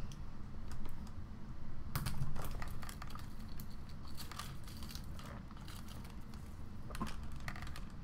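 Irregular small clicks, taps and crinkles of a toy's cardboard-and-plastic packaging being handled and pulled apart, busier about two seconds in, over a low steady room hum.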